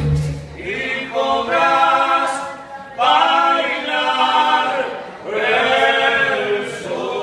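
Male voices of a Cuban son group singing a cappella: three long, held phrases after the band's guitars and maracas stop about a second in.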